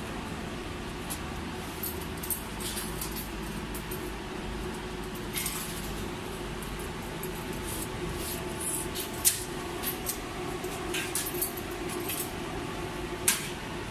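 Steady machine hum with scattered light clicks and clinks, the loudest about nine and thirteen seconds in, and a short rustle about five seconds in.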